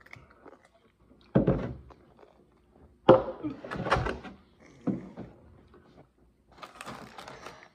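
A plastic gallon milk jug and a cup knocking down onto a wooden tabletop as milk is poured and the jug is put aside. There are several knocks a second or so apart, and the loudest comes about three seconds in.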